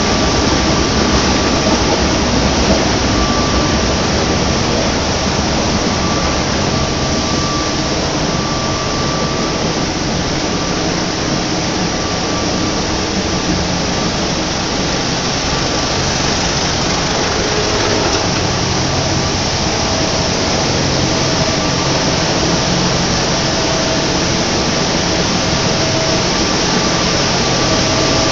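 Tissue paper making machinery running steadily: a loud, even mechanical noise with faint high tones that come and go.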